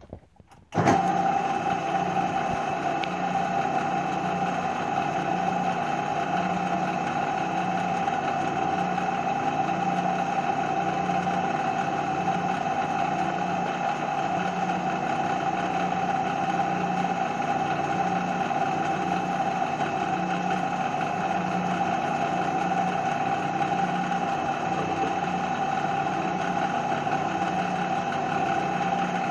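Drill press motor switched on about a second in, then running steadily with an even hum as it drills holes through stainless steel shower-curtain hooks.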